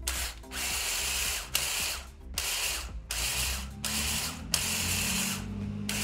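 Battery-powered Wild Badger multi-tool power head spinning a rotary scissors edger attachment in short trigger bursts, about seven spin-ups of under a second each with brief gaps between them.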